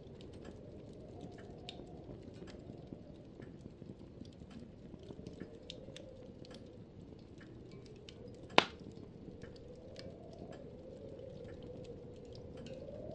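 Faint handling noise from a handheld camera: scattered small clicks and rustles over a low steady background, with one sharp click about eight and a half seconds in.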